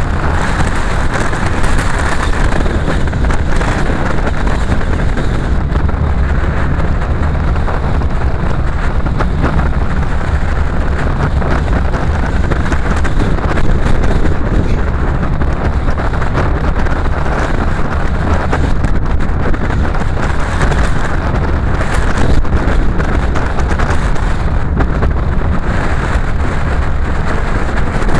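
Car driving at speed along an open road: a loud, steady rush of wind, tyre and engine noise with a heavy low rumble.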